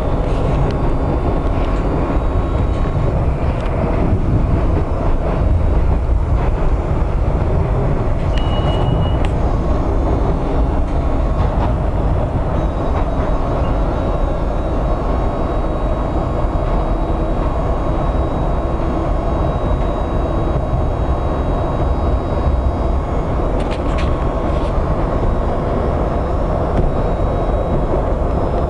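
Washington Metro Orange Line railcar running at speed, heard from inside the car: a steady low rumble of wheels on rail. A short high tone sounds about eight and a half seconds in.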